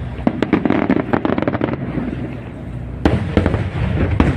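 Fireworks display: a rapid series of aerial shell bursts and crackling bangs, densest in the first two seconds, with heavier single booms about three seconds in and near the end, over a continuous low rumble.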